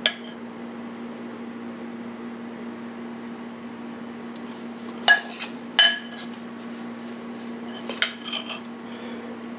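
A metal spoon clinking a handful of times against the bowl and tart pan while spooning berry filling into pastry tart shells, over a steady low hum.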